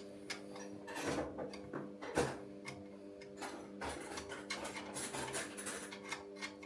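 Irregular light metallic clicks and clinks of a bolt, nuts and a handle bracket being handled and fitted by hand, over a faint steady hum.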